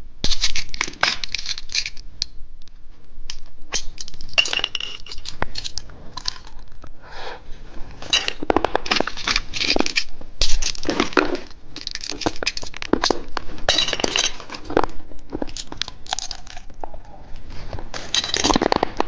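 Plastic candy packaging being torn open and crinkled by hand, in irregular bursts.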